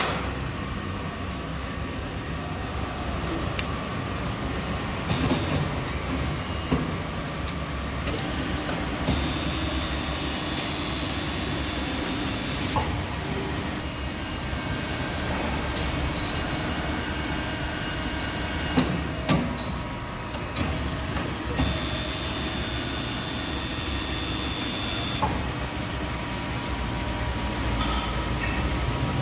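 Daljit HB 200 A fully automatic horizontal bandsaw running through its cycle on a clamped stack of round metal bars: a steady machine hum with a few short clicks and clunks, and a thin high tone that comes and goes twice.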